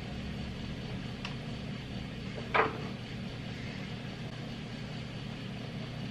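Steady low motor hum of a kitchen appliance, with one brief sharp sound about two and a half seconds in.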